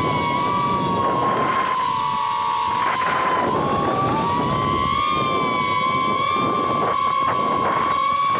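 FPV quadcopter's motors and propellers whining steadily at a high pitch that dips and rises slightly with throttle, with gusts of rushing wind noise.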